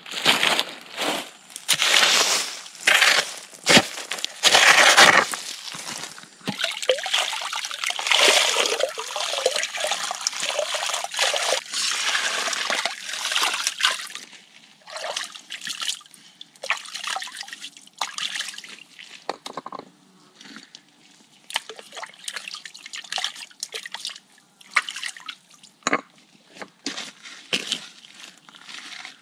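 A shovel scraping and scooping through gravel and water in a shallow, stone-lined spring channel, the water splashing and sloshing, with many sharp knocks of stone and metal. About halfway through it turns quieter: trickling water with scattered knocks of stones being set in place.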